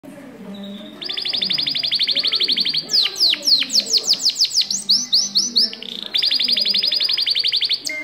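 Scotch Fancy canary singing: from about a second in a fast, even trill, then a run of slower notes sweeping steeply down in pitch and a few short rising notes, then the fast trill again, stopping just at the end.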